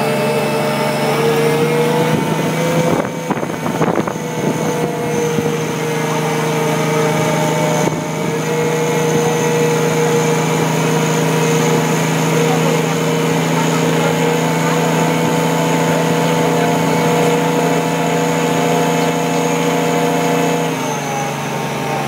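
Mobile crane's engine held at raised revs while it winches the bungee cage up, a steady run that drops back to a lower note near the end as the hoist stops.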